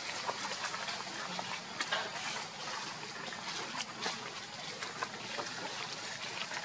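Dry leaves crackling and rustling in small irregular ticks as a baby monkey and an adult monkey move about on the leaf litter, over a steady outdoor hiss.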